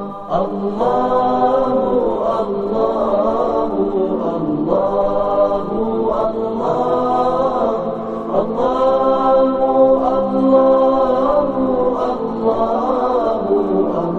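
Unaccompanied chanted vocal music: voices sing long held notes with slow glides in pitch, in phrases of about four seconds each.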